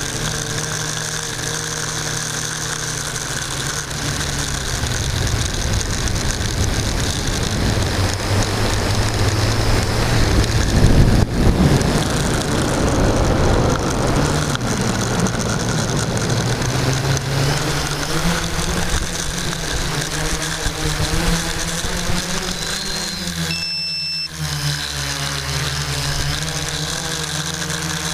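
Quadcopter's electric motors and propellers humming steadily, the pitch stepping up and down as the throttle changes. About 24 seconds in the sound briefly drops out and two short, high, steady tones sound.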